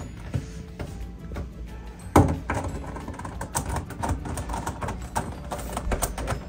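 Plastic twisty-puzzle pieces clicking and clacking irregularly as the layers are turned by hand, with one louder clack about two seconds in. Background music plays underneath.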